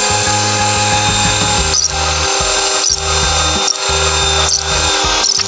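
Steady high whine of a crane's engine and hydraulic pump heard inside the operator's cab, under background music with a stepping bass line.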